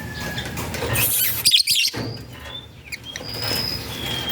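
Lovebirds chirping: several short, high chirps and whistles in the second half, after a few scratchy bursts of noise between one and two seconds in.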